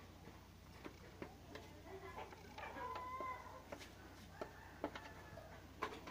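Faint chicken calls, with one drawn-out call about three seconds in, over scattered light clicks and taps from hands handling a hard plastic motorbike panel.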